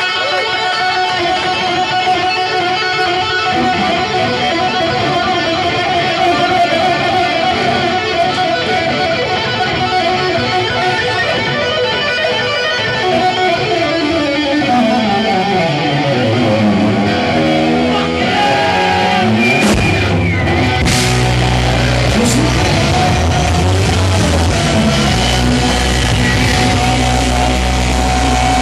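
Live hard-rock band led by electric guitar through Marshall amplifiers: a sustained lead-guitar solo, with a long swoop down in pitch and back up about two-thirds of the way through. About twenty seconds in, the band comes in with a heavy low end.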